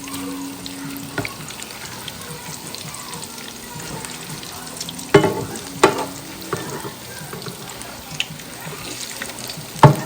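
Squash fritters sizzling steadily as they fry in a pan. There are two sharp knocks about five and six seconds in.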